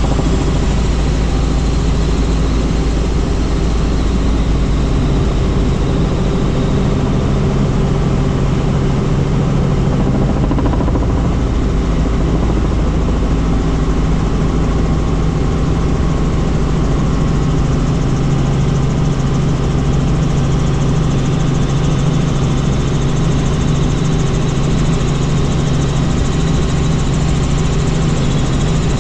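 Helicopter in flight heard from on board: rotor and engine running loud and steady, a low, even hum that does not change.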